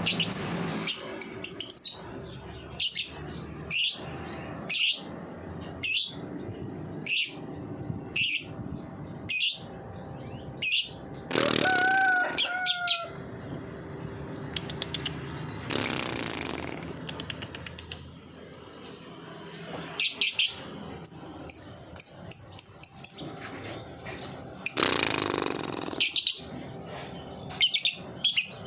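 Lovebird calling in short, sharp, high chirps at about one a second, the rapid 'ngetik' call, broken by a few longer harsh chattering bursts. Near the end the chirps come faster.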